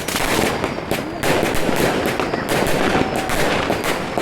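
Many fireworks and firecrackers going off at once, a dense continuous crackle of bangs, with a few faint falling whistles.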